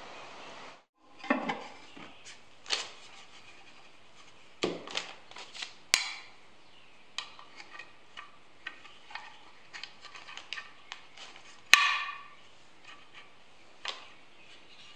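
Scattered light knocks, taps and clicks of a wooden can being handled while an aluminium wire paint-can handle is fitted into its sides. There is a sharp metallic click about six seconds in, and the loudest one about twelve seconds in.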